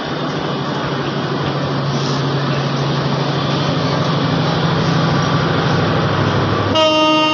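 Passenger train moving slowly, a steady low engine drone over a broad rumble, with a short horn blast near the end.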